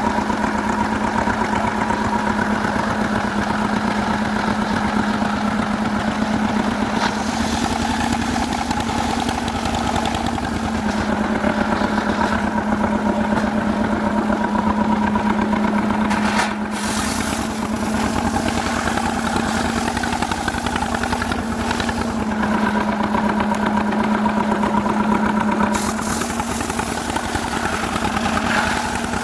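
Stihl two-stroke chainsaw running at high revs through jackfruit wood, its pitch sagging and recovering a little as the load on the chain changes, with a brief dip in the sound about halfway through.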